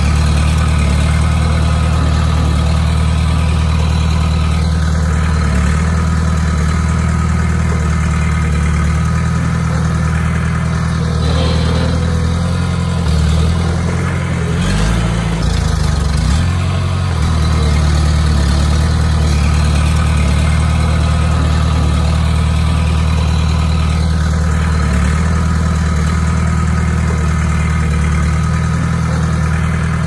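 Diesel engine of a Komatsu D20P bulldozer running steadily under work. Its note dips and shifts for a few seconds about halfway through, then settles back.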